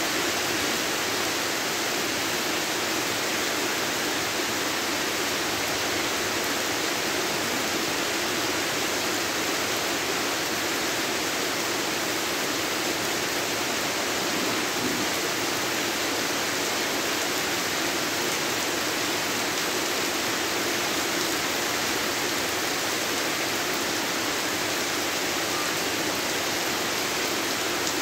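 Heavy rain pouring down steadily on a garden path and plants: a dense, even hiss with no letup.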